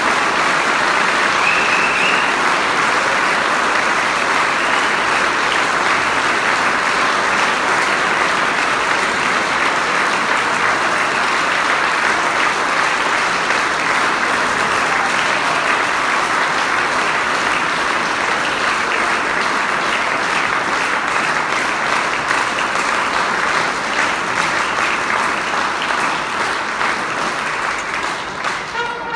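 Audience applauding, a long steady round of clapping that eases slightly near the end.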